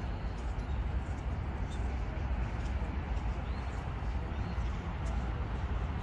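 Steady outdoor ambience of a city park: a continuous low rumble, with faint bird chirps now and then.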